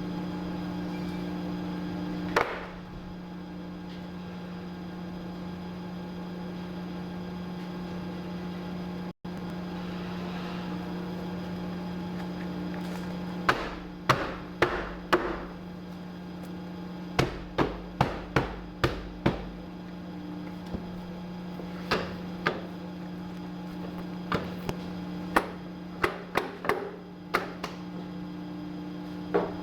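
Electric paper guillotine cutter's motor humming steadily, with a single sharp click early on and, from about halfway through, a run of sharp irregular knocks and clacks over a brief low rumble.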